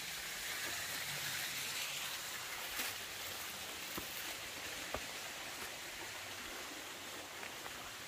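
Steady hiss of running water that fades a little, with a few faint clicks.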